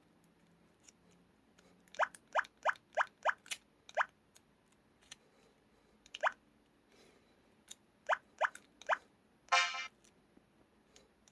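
Curitel PT-K1600 mobile phone playing its button sound effects: about ten short chirps, each rising quickly in pitch, in scattered runs, then a longer buzzy tone about 9.5 seconds in.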